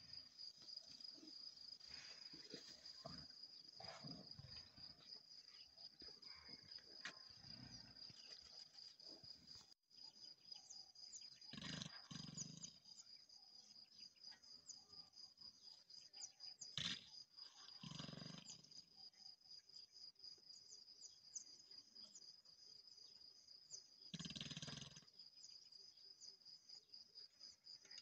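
Lionesses growling in short deep bursts every few seconds as they feed on a buffalo kill, with a sharp click about seventeen seconds in. Insects trill steadily and high-pitched underneath.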